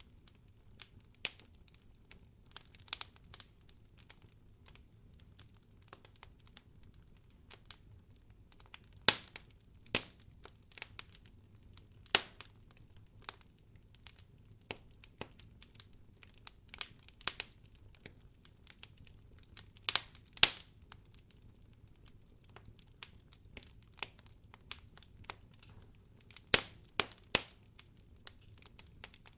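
Wood campfire crackling: irregular sharp snaps and pops from burning firewood, with several much louder pops among them.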